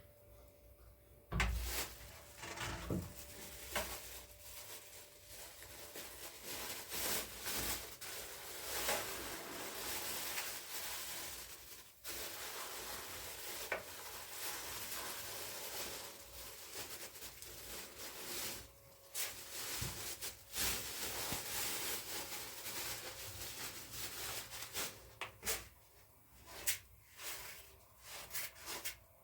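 Rustling and rubbing with many scattered clicks and knocks, as of things being handled and set down.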